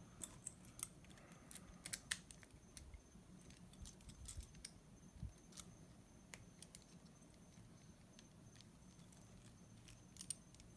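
Small metal lock parts clicking and tapping against each other as a lock is reassembled by hand: scattered sharp ticks, thickest in the first couple of seconds, with a quick pair near the end.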